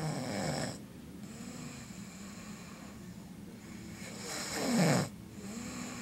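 A man snoring in his sleep: two loud snores about four seconds apart, the second swelling louder and cutting off sharply, with quieter breathing between.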